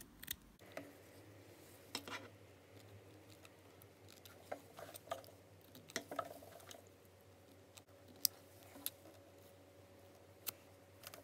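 Scissors snipping loose, frayed threads off the zigzag-stitched raw edge of a voile net curtain: a series of short, faint snips at uneven intervals.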